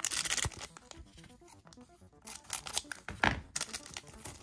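A trading card booster pack wrapper being torn open and crinkled by hand, in a few short rips: one right at the start and more around two to three seconds in.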